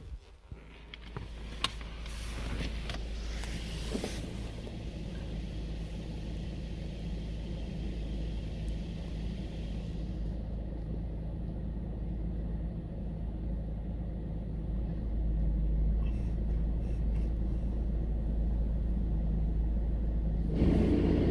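Ryko Radius HT touchless automatic car wash running during its foam cycle, heard from inside the car's cabin: a steady low rumble that grows slowly louder. There are a few clicks in the first seconds, and near the end the sound changes as a steady hum comes in.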